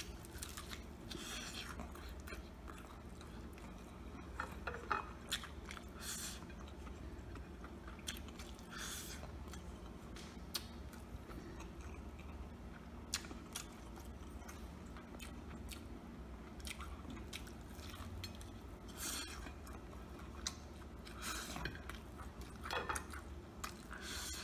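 A person biting into and chewing a crispy breaded chicken drumstick: irregular crunches and wet chewing clicks, close up.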